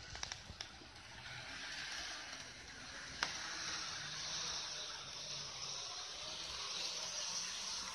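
Model 313 series 3000 train running on the layout's track: a steady rushing whir of motor and wheels that swells and eases. There are a few light clicks near the start and one sharper click about three seconds in.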